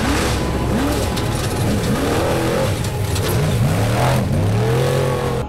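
Off-road race truck engine revving hard, its pitch sweeping up and down several times as it drives over a dirt course.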